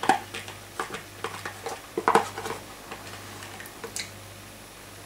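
Teaspoon clinking and scraping as thick cream is scooped out of a cut-open carton into a stainless steel mixer bowl: a string of irregular light clicks, the loudest about two seconds in.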